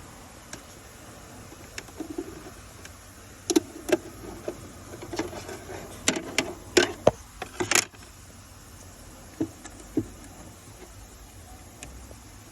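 Hands at work replacing a car's cabin air filter: scattered clicks, taps and rustling, busiest in the middle few seconds.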